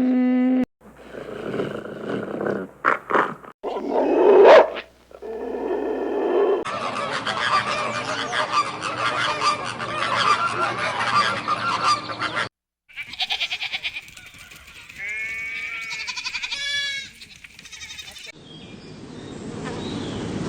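Farm-animal calls in a series of short clips cut one after another, each cut changing the sound abruptly. A dense stretch of many overlapping calls runs through the middle, and a run of falling, strongly pitched calls comes near the end.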